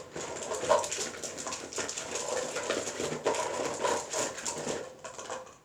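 Continuous rapid crackling and rustling from a small plastic slime container being handled and opened, ending just before the end.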